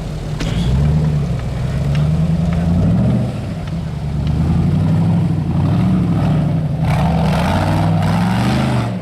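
Off-road vehicle engine revving up and down repeatedly under load, the pitch rising and falling every second or two. About seven seconds in, a rushing noise joins the engine for about two seconds.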